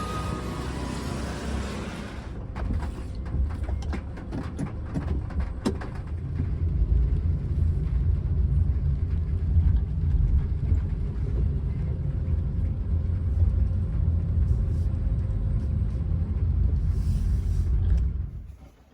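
Low, steady rumble of road and engine noise inside a moving Honda N-VAN kei van's cabin, with scattered light clicks and taps in the first few seconds.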